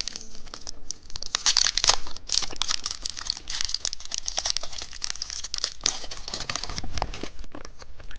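Crinkly plastic candy wrapper being crumpled and torn open by hand, a dense run of crackles, with a dull thud about seven seconds in.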